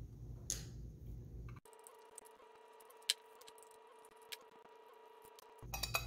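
Faint clicks and taps of the metal deadbolt and its back cover being handled, with one sharper click about three seconds in and a faint steady hum through the middle of the stretch.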